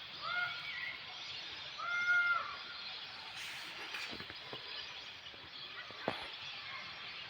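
Two short animal calls, each an arched, pitched cry about half a second long, roughly a second and a half apart, over a steady outdoor hiss.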